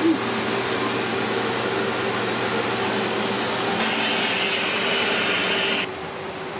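A workshop machine running steadily with a whooshing air noise and a low hum. The sound changes abruptly about four seconds in, then drops suddenly to a quieter level near the end.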